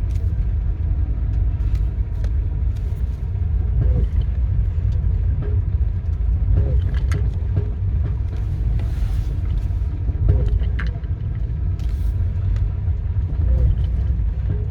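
Nissan Micra K11 1.0-litre car driving at low speed: a steady low rumble with short knocks every second or few. The owner says it clunks and jerks when the gas pedal is pressed at low speed.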